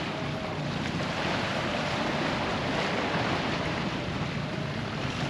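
Steady wash of wind buffeting the microphone with small waves lapping against the rocky shore, swelling briefly about halfway through.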